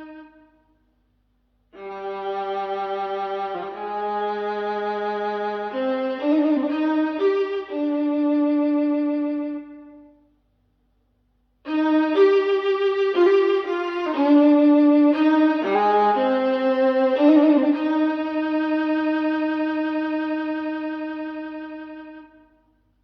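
Solo violin music played back through Wharfedale Diamond 9.0 speakers driven by a NobSound NS-15G amplifier. It comes in two phrases of long held notes: the first ends about ten seconds in, and after a short silence the second starts and fades away near the end.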